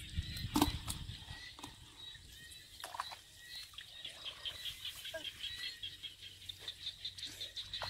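Shallow muddy water splashing and sloshing in short, irregular bursts as bare feet and hands move through the mud. About halfway through, a quick, even chirping comes in behind it.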